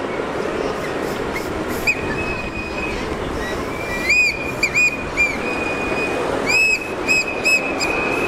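A whistle blown as cars pass: a held shrill tone, then two runs of short sharp blasts, about four a little after the middle and three more near the end. Underneath is the steady rumble of the team cars' engines and tyres going by.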